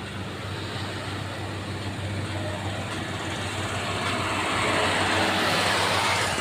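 Heavy diesel road-construction machinery running steadily with a deep hum, while a broad rushing noise builds up over the second half and drops off sharply near the end.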